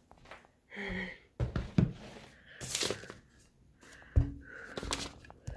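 Handling noises: a few scattered knocks and a brief crinkly rustle near the middle, with a short voiced hum about a second in.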